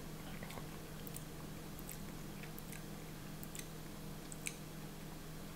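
Faint lip smacks and tongue clicks of a man savouring a mouthful of energy drink, a few scattered soft clicks over a steady low hum.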